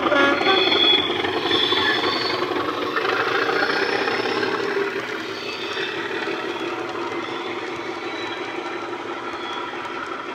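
Sound decoders playing the Class 37 diesel engine sound through speakers in a pair of OO-gauge model locomotives, passing under power with a steady engine note and a high whistle over it. It is loudest as the two locos go by and drops about five seconds in, when the train of wagons rolls past with the rumble of model wheels on the track.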